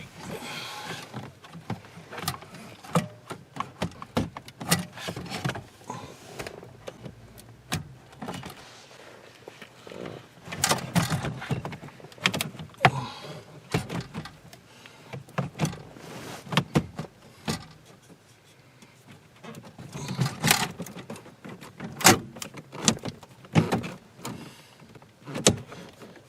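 Irregular plastic clicks, knocks and rustling as wiring-harness connectors and dash parts are handled and plugged in behind the car's dashboard.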